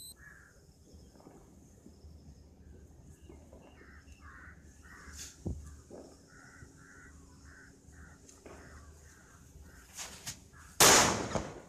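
A small round firecracker goes off near the end with a loud burst that dies away over about half a second, just after a couple of smaller pops. Birds call repeatedly throughout, and there is a single sharp click midway.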